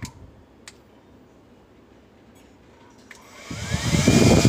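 Cordless hair dryer switched off, then back on. The motor stops at the start, two button clicks follow in the quiet, and about three seconds in the motor spins up again with a rising whine and a rush of air.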